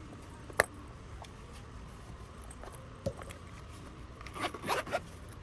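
Faint handling noises from unboxing a crochet hook case: a sharp click about half a second in, a soft knock about three seconds in, and a short burst of rustling and scraping near the end.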